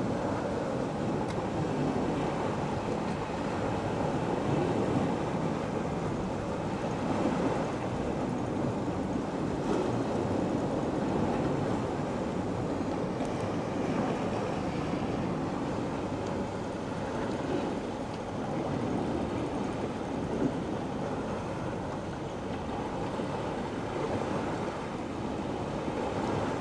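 Steady rushing background noise, even throughout with no distinct events.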